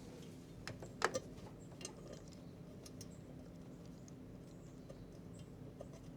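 Faint metallic clicks and taps of bolts and tools during hand-threading of exhaust manifold bolts, the loudest a pair about a second in, over a low steady background hum.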